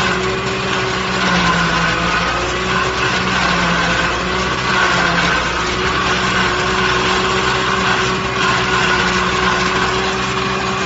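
Tractor engine running steadily, driving a side-mounted PTO forage harvester, with the engine's pitch wavering slightly under load.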